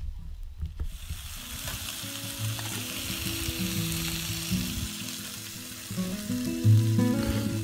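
Bacon strips sizzling in a frying pan on a camp stove, a steady hiss starting about a second in. Background music of held low notes plays over it.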